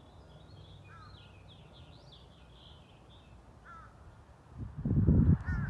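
Birds calling: a run of quick high chirps over the first three seconds and short two-note calls repeated a few times. A loud low rumble starts about four and a half seconds in.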